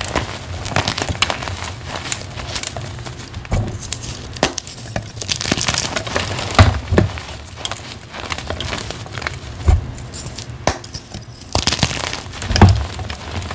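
Soft dyed gym chalk reforms squeezed and crushed in the hands: a steady crumbling crunch of powdery chalk, dotted with sharper cracks and a few louder ones.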